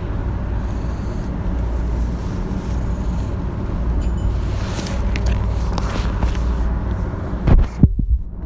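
Commuter train running, heard from inside the carriage: a steady low rumble with running noise. Near the end come a few sharp loud knocks and a brief drop-out in the sound.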